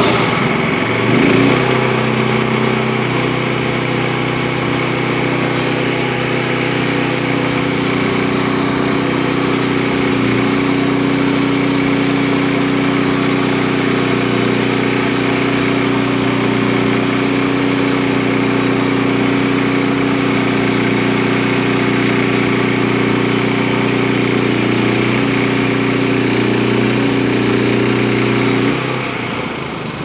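Small gasoline engine of a Frontier OS23 portable band sawmill running steadily while the band blade cuts along a white oak log. The engine note changes about a second in and drops away shortly before the end.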